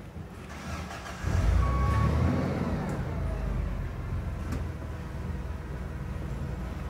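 A 2011 Mazda 3's engine catching and starting about a second in, revving up briefly and then dropping back to a steady idle.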